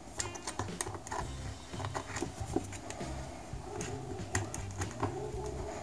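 Scattered light clicks and scrapes of multimeter probe tips and wires being handled against the plastic housing and heating-element terminals of an electric shower.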